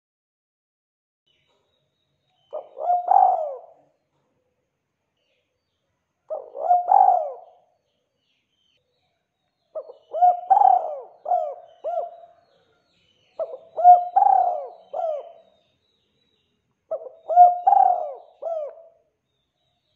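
Spotted dove cooing: five phrases, one about every three and a half seconds, with silence between them. The later phrases are longer, each ending in two or three extra short coos.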